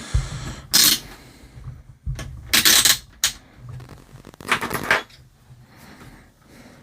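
Small objects being handled and set down on a workbench: a couple of low knocks and three short bursts of clattering and rustling, a couple of seconds apart.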